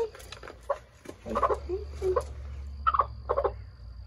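Broody hen giving a string of short calls, about six in four seconds, protesting at being handled and set back down onto her eggs.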